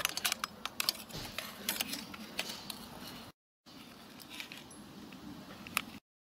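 Irregular metallic clinks and scrapes as a metal tool is worked under the firebox and ashpan of a coal-fired miniature steam locomotive. The clinks are thickest in the first few seconds, and the sound drops out briefly about halfway through.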